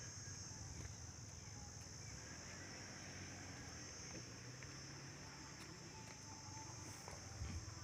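Faint, steady, high-pitched chirring of insects, with a few faint clicks.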